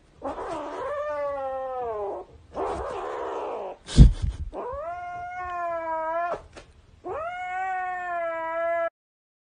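A young pet animal giving four long, drawn-out cries, each one to two seconds long with a clear pitch, and a sharp thump about four seconds in.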